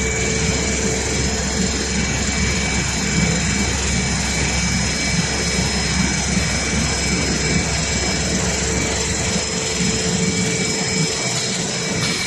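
Four-roll A4 paper sheeting and packaging line running: a steady, loud mechanical noise with a constant hum and a few steady whining tones over it. The low rumble thins a little near the end.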